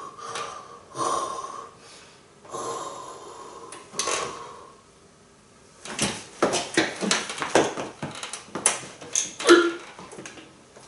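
A lifter's heavy, forceful breathing while bracing to press a pair of 35 kg dumbbells, then, about six seconds in, a quick run of short, sharp huffs and a strained grunt as the weights are heaved up to the shoulders and pressed.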